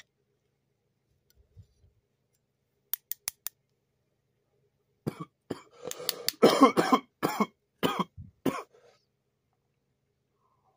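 A man coughing hard after inhaling smoke from a bong: a run of harsh coughs starting about five seconds in and lasting about four seconds. A few sharp clicks come about three seconds in, before the coughing.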